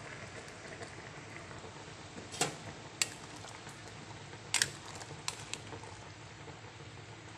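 Fish braising in a pot, a steady low bubbling as the sauce cooks down, with several sharp clinks of cookware against the pot, the loudest about two and a half and four and a half seconds in.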